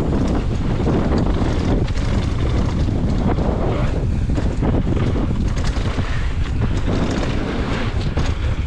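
Mountain bike riding fast down a dirt singletrack: wind rushing over the microphone over a steady low tyre rumble, with frequent sharp clicks and rattles as the bike goes over bumps.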